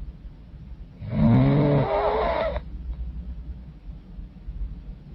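A woman's loud snore, about a second in and lasting about a second and a half, followed by a quieter stretch before the next breath.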